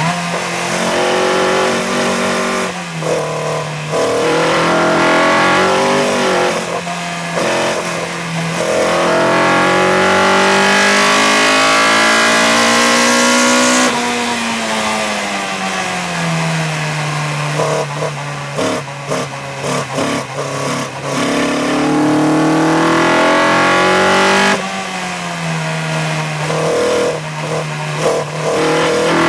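Racing car engine heard from on board in an open cockpit, its pitch climbing steadily under full throttle. About halfway through it drops away sharply as the car brakes, with a run of short breaks and blips through the gear changes before it climbs again. Another lift and a series of gear changes come near the end.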